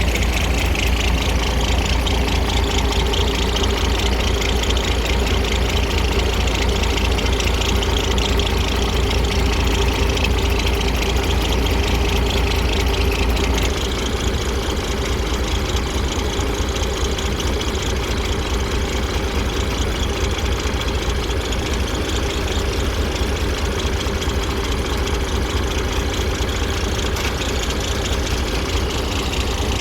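Heavy diesel engine of earthmoving machinery running steadily with a low rumble, dropping a little in level about halfway through.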